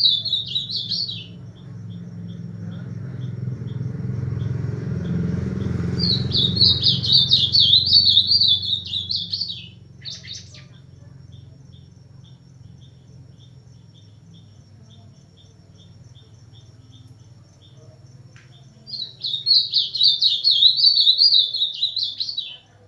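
Ultramarine grosbeak (azulão) singing its fast, warbled song in three phrases of about three seconds each: one ending about a second in, one from about six seconds in, and one near the end. A faint, even ticking runs between the phrases, and a low rumble swells and fades in the first ten seconds.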